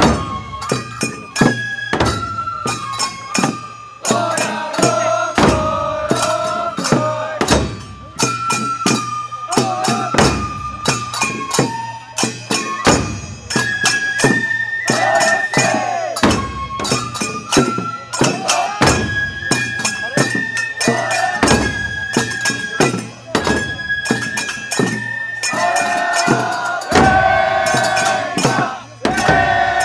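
Festival hayashi: Japanese bamboo flutes play a melody of held, stepping notes over frequent, irregular taiko drum strikes.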